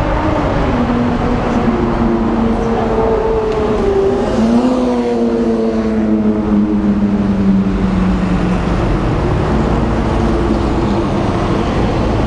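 City street traffic: vehicle engines running and passing. About four seconds in, one engine's pitch rises, then slowly falls over the next few seconds.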